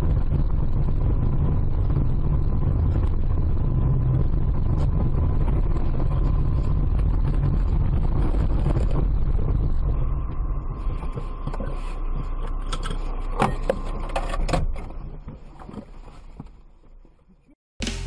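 Steady low rumble of a moving vehicle's engine and road noise that eases off about ten seconds in. A few sharp knocks come near the end, the loudest about thirteen seconds in, and then the sound fades out.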